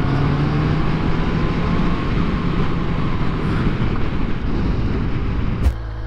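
Sport motorcycle engine running at a steady road speed under a heavy rush of wind and road noise. About five and a half seconds in, the sound cuts off abruptly to a quieter, steady low engine hum.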